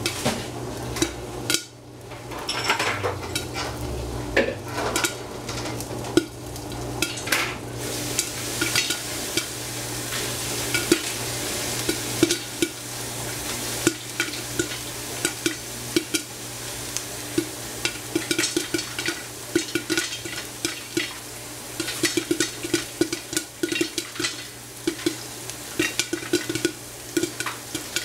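Food sizzling in a hot pan while a metal utensil stirs it, with many short knocks of the utensil against the pan that come in quick runs near the end.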